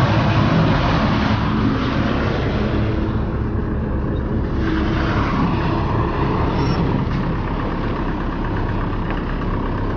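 A heavy truck's diesel engine running steadily, a continuous low mechanical hum.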